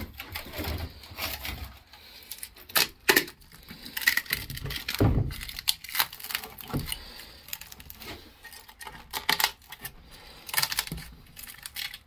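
Cured chopped-strand-mat fiberglass part being worked loose from its mold by hand, its edges popping free with irregular crackles, snaps and scratchy rustles. A dull knock about five seconds in.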